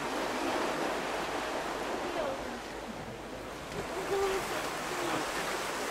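Steady rush of churning water in a river lock chamber.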